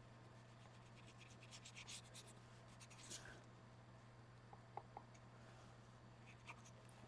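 Faint scratchy strokes of paint being worked onto a small art card, in a few short runs, with a couple of light ticks about five seconds in, over a steady low hum.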